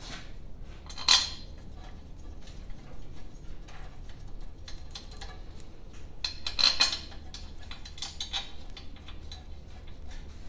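Metal engine parts and tools clinking and clanking as they are handled, with a sharp clink about a second in and a cluster of louder clanks around six to seven seconds in, over a steady low hum.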